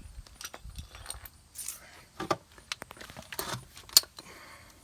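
Metal hand tools clinking and rattling as they are handled, a string of small sharp clinks with the sharpest about four seconds in.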